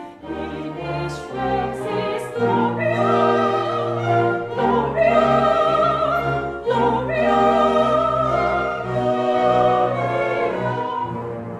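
Operatic soprano singing a Christmas carol with a chamber orchestra, holding long wavering notes over bowed strings and cellos.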